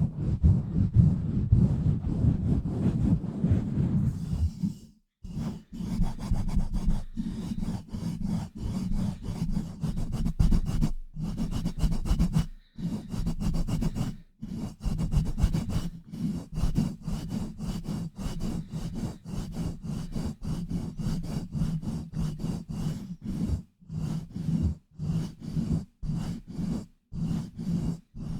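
Hands rubbing and scratching fast and hard directly on a bare microphone with no foam cover, a rapid run of rough strokes heavy in low rumble, broken by a few short pauses.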